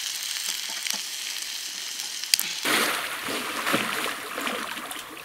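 Hiss and crackle of a small wood-fired camp stove under a lidded pot, with one sharp click a little past halfway. About two and a half seconds in it gives way to river water splashing around a swimmer.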